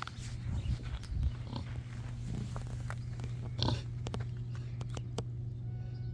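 Pig grunting over a steady low drone, with a few short knocks.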